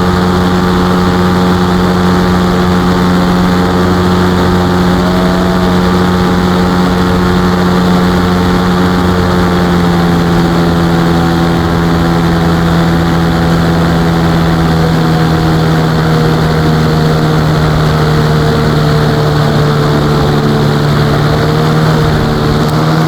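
Ultralight aircraft's engine and propeller running at a steady drone. The pitch dips slightly about halfway through and starts dropping sharply right at the end as the engine is throttled back.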